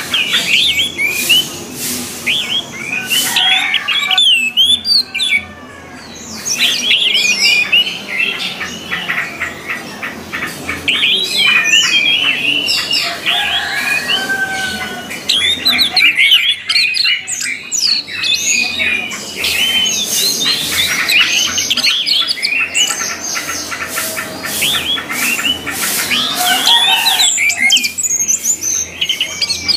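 Orange-headed thrushes singing loudly and continuously: rapid, varied phrases of whistled glides and chattering notes, easing off briefly twice.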